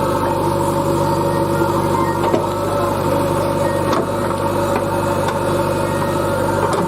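Heavy diesel engine running steadily at a constant speed, with a couple of faint knocks.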